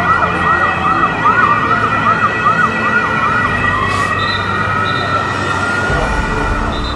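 Ambulance siren in a fast yelp, about three sweeps a second, changing a little past halfway to a slow wail, with a steady high tone underneath.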